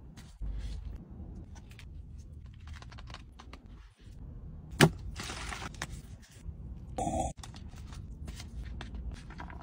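Food handling with gloved hands in a paper cup: scattered rustles, scrapes and soft clicks, with one sharp crack about five seconds in, over a low steady rumble.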